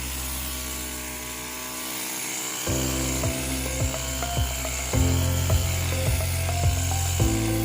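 Background music: held low notes change about every two seconds over a light, even beat that comes in about a third of the way through.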